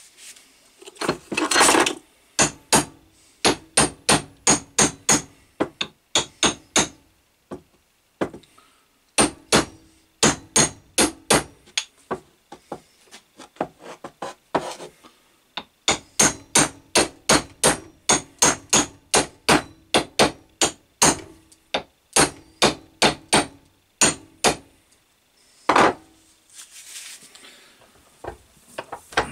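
Hammer tapping a small steel axe head onto its wooden hickory handle, in quick runs of sharp strikes about two to three a second with short pauses between. A longer, rougher knock comes about a second in and another near the end.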